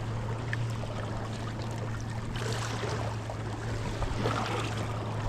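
Steady water and wind noise with a constant low hum underneath.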